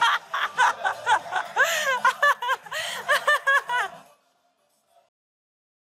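A person laughing hard in quick repeated 'ha' bursts, stopping abruptly about four seconds in.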